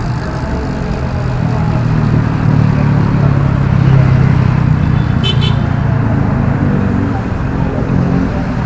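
Road traffic from cars and motorcycles alongside, heard from a bicycle riding with them. It is a steady low hum that grows a little louder mid-way. About five seconds in there is a brief high-pitched ringing chirp.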